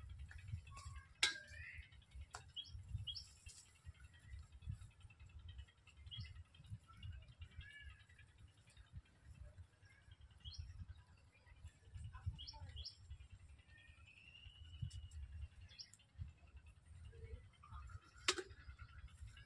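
Faint animal calls: scattered short high chirps and a few longer arching calls, with a couple of sharp clicks, over a low rumble of wind or handling noise.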